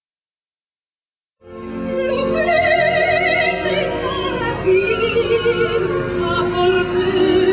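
Operatic singing with strong vibrato over a musical accompaniment, starting abruptly about a second and a half in after complete silence.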